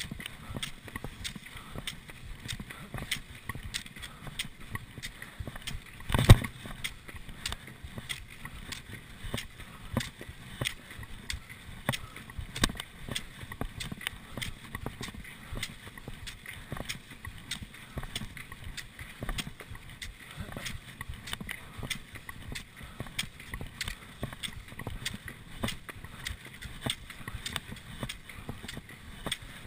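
Classic cross-country skiing heard from a camera worn by the skier: pole tips planting in packed snow and skis sliding in the set tracks, giving sharp clicks roughly two a second over a steady hiss. One louder knock comes about six seconds in.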